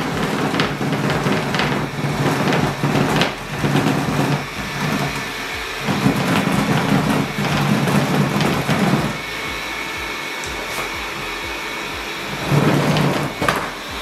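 Liectroux ZK901 robot vacuum running as it climbs a propped-up OSB board ramp, its drive wheels slipping and scrabbling on the wood. The sound comes in loud, uneven rumbling stretches over a steadier motor hum.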